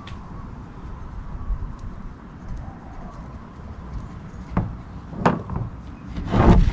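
Occasional knocks and a short, louder clatter near the end, over a low steady background rumble: a brake rotor being handled and set onto the hub.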